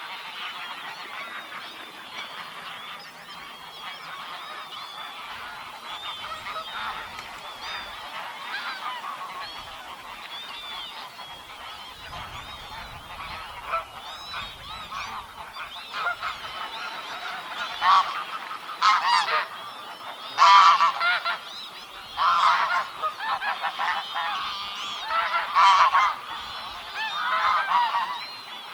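A flock of geese honking: a dense chorus of many overlapping calls, with louder, nearer honks standing out in the second half.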